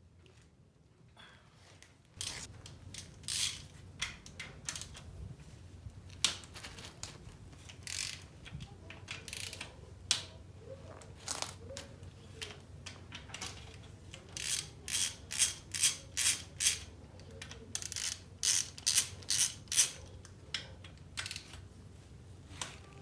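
Socket ratchet wrench clicking in repeated short strokes as bolts on the engine's bottom end are worked. The clicks come in runs, quickest and loudest in the second half.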